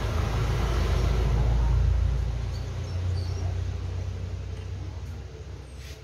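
A low rumble that swells to its loudest about two seconds in, then slowly fades.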